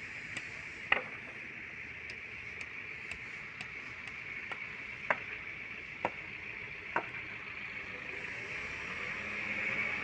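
A few sharp taps or knocks, four in all and spread a second or more apart, over a steady high hiss that grows louder near the end.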